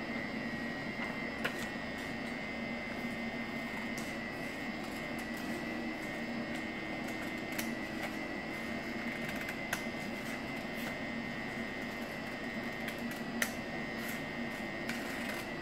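Small scissors snipping through folded paper, a few scattered clicks and cuts over a steady background hum with a faint high tone.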